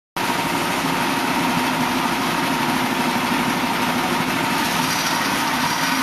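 Portable band sawmill with its engine running steadily, an even hum with a high hiss and no changes in speed.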